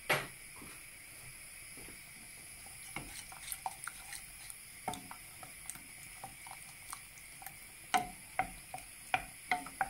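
A wooden spoon stirring a thick tomato and pepper sauce in a stainless steel saucepan, with scattered light knocks of the spoon against the pan. The sharpest knocks come just after the start and in a run near the end.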